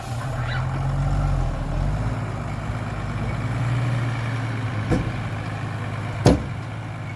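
Dump truck's diesel engine running, its note higher for the first couple of seconds, then dropping to a steady lower run. Two sharp knocks come near the end, the second louder.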